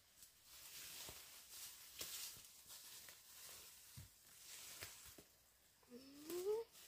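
Faint rustling with scattered light knocks, then about six seconds in a short rising tone that climbs for under a second.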